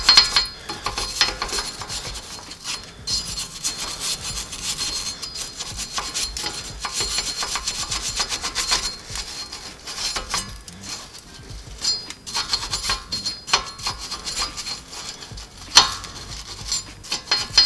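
Wire brush scrubbing surface rust off the front wheel hub of a 2018 Subaru Crosstrek, a scratchy metal-on-metal rasp in runs of quick strokes with short pauses, cleaning the hub face so the new rotor will sit flat.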